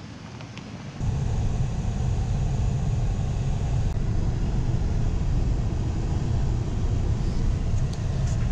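Steady low rumble of a pickup truck's engine and tyres heard from inside the cab while driving. It starts abruptly about a second in, after a quieter first second.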